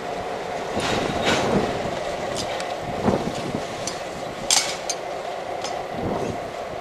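Diesel locomotive passing slowly at close range, its engine running steadily, with irregular sharp clicks and clanks from the wheels and running gear on the rails.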